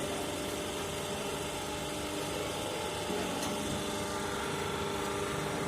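A vehicle's engine and road noise making a steady hum.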